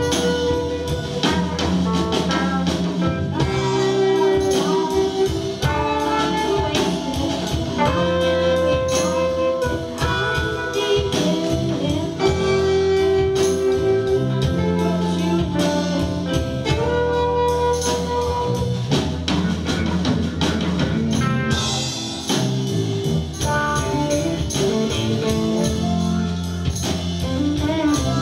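Live band playing an instrumental passage on electric guitars, bass and drums, with a lead line of long held notes, some of them bending in pitch.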